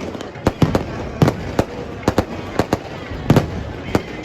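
Fireworks and firecrackers going off in a rapid, irregular string of sharp bangs and cracks, several a second, with voices faintly underneath.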